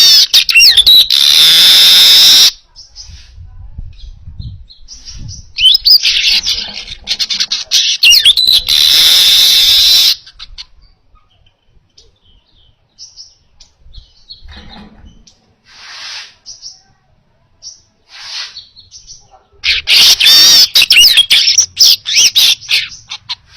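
Manyar (weaver bird) singing: a fast, buzzy, chattering song given in three loud bursts of a few seconds each, with short scattered calls in the gaps between them.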